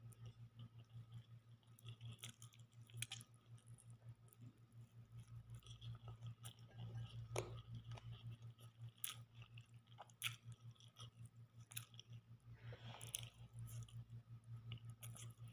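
Quiet chewing and mouth sounds of a person eating chicken with her hands, with many small scattered clicks over a steady low hum.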